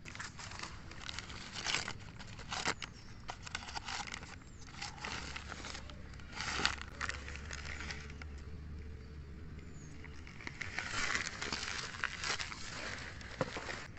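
Newspaper rustling and crinkling in irregular bursts as it is handled and pulled off small clay pots, with a few sharp clicks.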